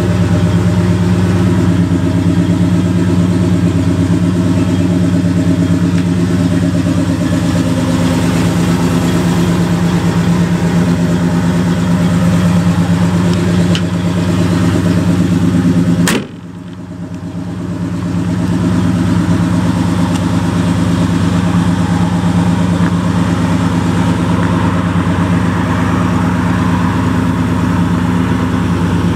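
1970 Dodge D100's 318 cubic-inch V8 idling steadily. About halfway through, a single sharp knock, after which the engine sound briefly dips and then comes back up.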